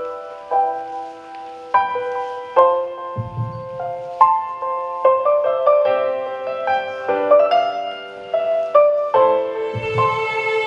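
Slow piano music: chords and single notes struck about once a second and left ringing, with a low rumble under it twice, about three seconds in and near the end.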